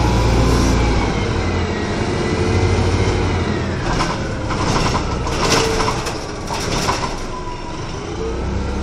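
Inside a 1996 RTS city bus under way: a steady low engine and drivetrain drone, with a whine that slowly rises and falls in pitch. From about four to seven seconds in there is a run of rattles.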